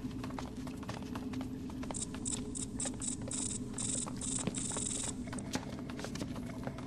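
Film sound effects for a cave: scattered clicks and scrapes like footsteps on rock over a steady low drone. About two seconds in, a high hissing rattle starts pulsing, its hisses growing longer, and cuts off near five seconds.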